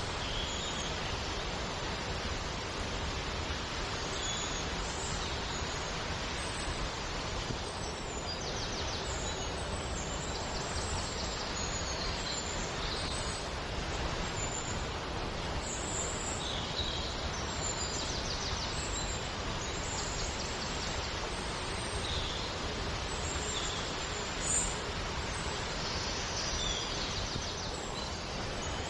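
Steady rush of flowing water, with small birds chirping and trilling over it every few seconds.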